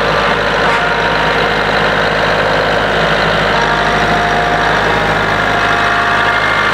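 Kubota compact tractor's diesel engine running steadily as its front loader carries a 1,000-pound tote of feed raised on pallet forks.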